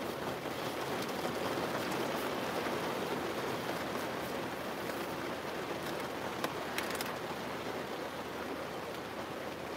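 Steady rain falling on a window pane, an even hiss, with a few sharper taps about two-thirds of the way through.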